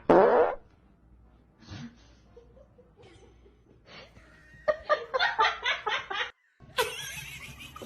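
A person laughing in quick repeated bursts, after a short loud sound right at the start. The laughter breaks off abruptly and a hissy background follows.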